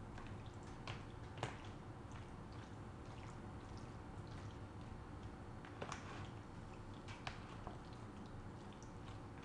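A spoon stirring a creamy fruit-cocktail salad in a plastic bowl: soft wet squishing of the cream-coated fruit with scattered light clicks of the spoon against the bowl.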